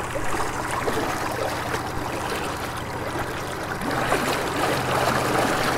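Homemade 48-volt Newman-type electric outboard motor running under load, its propeller churning water in a steady rush over a low steady hum. The churning grows a little louder about four seconds in.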